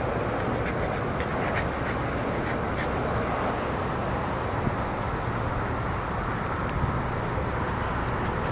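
Steady outdoor background noise with a low rumble and a few faint ticks.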